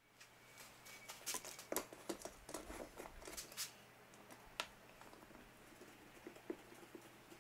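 A bar clamp being tightened by its handle onto a glued wooden test block at a bench edge: scattered light clicks, taps and knocks for the first four or five seconds, then mostly a faint steady hum.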